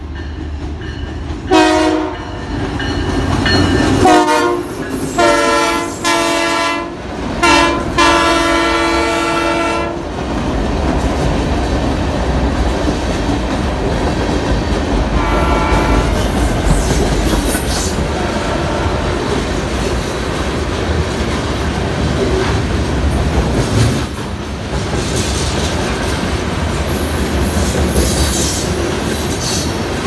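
NYAR RS40 freight locomotive's horn sounding a string of blasts as it comes through the station: a short one, then longer ones, the last two held about two seconds each, and one more brief blast a few seconds later. After the horn the locomotive's engine rumbles by, followed by a long line of freight cars rolling past with wheels clicking over the rail joints.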